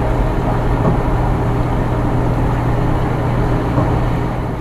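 Steady road noise inside a truck's cab at driving speed: a low engine hum under the hiss of tyres on a wet road.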